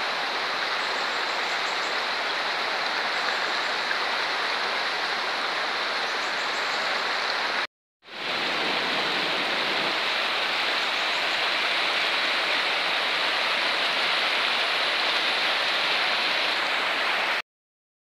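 Shallow, rocky river rushing over stones, a steady rushing of water. It cuts out for a moment about eight seconds in, resumes, and stops just before the end.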